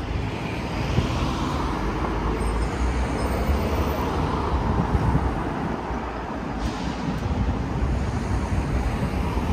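City street traffic: cars passing, heard as a steady wash of road noise.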